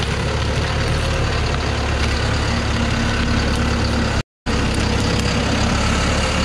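Thaco Foland truck's diesel engine running steadily, with a brief drop to silence about four seconds in.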